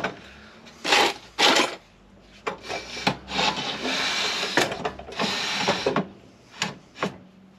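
Evolution S355CPS metal-cutting chop saw dragged and swivelled on a workbench: its base scrapes across the bench top in several rough strokes, with sharp knocks in between and a few near the end.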